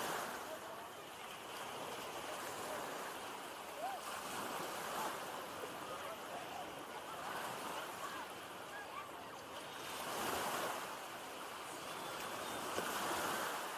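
Small sea waves breaking and washing over sand in shallow water, surging louder about ten seconds in and again near the end, with faint distant voices of bathers.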